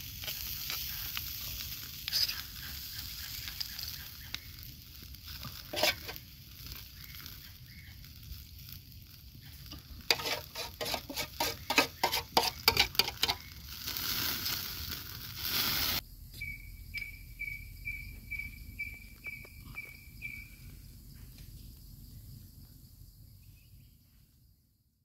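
Marinated octopus sizzling as it grills on a hot rock, with scattered clicks and, in the middle, a run of quick taps. It cuts off suddenly, and a short high note then repeats about twice a second for a few seconds.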